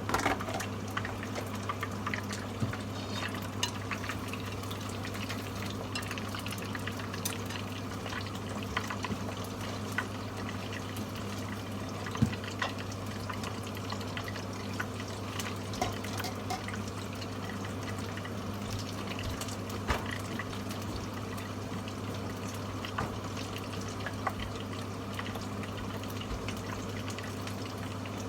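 Karaage chicken pieces deep-frying in hot oil, a steady sizzle with scattered small crackles and pops, over a steady low hum.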